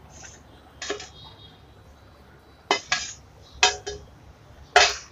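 A plastic spoon and a glass plate knocking and clinking against a glass mixing bowl as grated boiled potato is scraped into it: about half a dozen short knocks, the loudest near the end.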